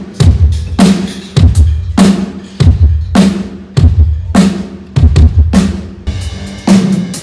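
Acoustic drum kit played alone in a steady groove, bass drum and snare hits at about two a second, as at a band's soundcheck.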